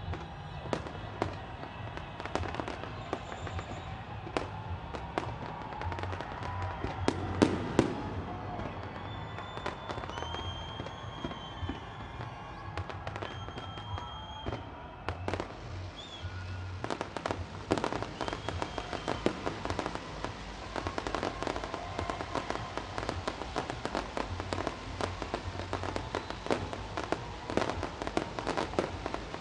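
Fireworks display going off: many sharp bangs and crackles, coming thicker in the second half, with music playing underneath.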